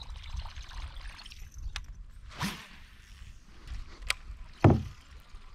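Water lapping and trickling around a kayak hull, broken by a brief whoosh a couple of seconds in, a sharp click, and then a short, louder low thud about two-thirds of the way through.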